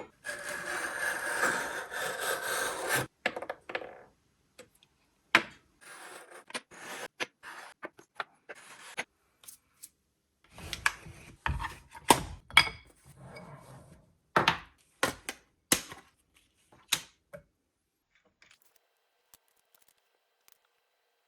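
Sterling silver pieces being filed flat on the bottom by hand: a long continuous rasping stretch, then shorter rasping strokes broken by sharp clicks, stopping about three-quarters of the way through.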